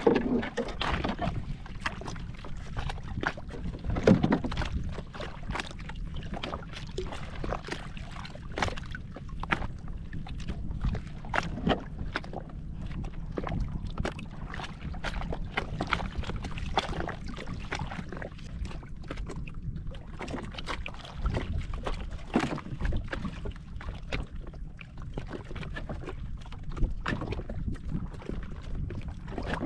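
Sea water sloshing against a small wooden outrigger boat, over a steady low noise, with scattered light knocks and taps on the boat.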